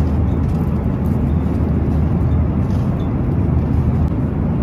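Airliner cabin noise in flight: a steady, even low rumble.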